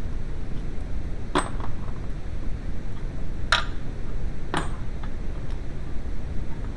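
Three sharp clinks of metal striking metal, each with a short ring, over a steady low hum.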